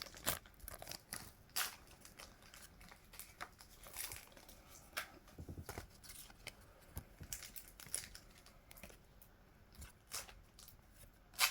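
Faint, scattered crinkling and tearing of foil Pokémon card booster-pack wrappers being opened.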